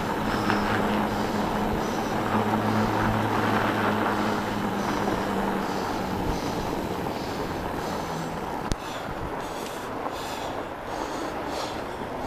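Fat bike rolling over packed snow: steady rolling noise from the wide knobby tyres, with a low hum through the first two-thirds that then fades, and a single sharp click about nine seconds in.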